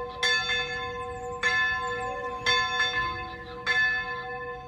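A church bell tolling, struck four times about a second apart, each stroke ringing on into the next.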